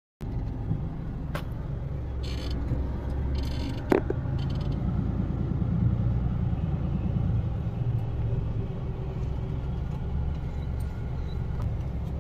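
Cabin noise inside a moving car: a steady low rumble of engine and road, with a single sharp click about four seconds in.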